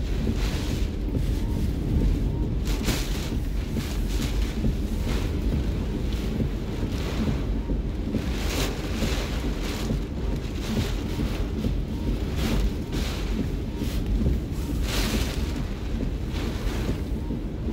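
Hurricane wind and driving rain heard from inside a vehicle: a steady low rumble of wind buffeting the car and microphone, with irregular gusts of rain lashing against the windshield.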